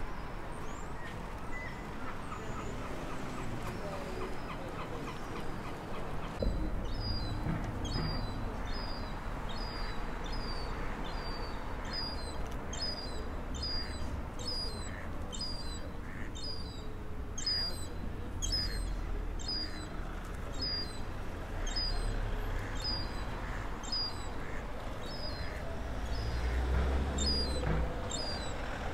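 Young gulls calling: a thin, high call repeated about once a second, starting about six seconds in, over a low steady rumble.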